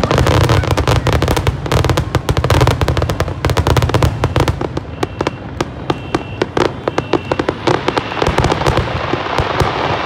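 Aerial fireworks display at full tilt: a dense run of bangs and crackling from shells bursting overhead, over a deep rumble. The bangs thin out after about eight seconds, leaving a softer crackle.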